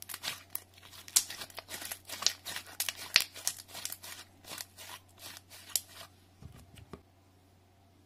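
Slime being stretched and folded between the fingers, giving a rapid run of sticky clicks and small pops that stops about seven seconds in.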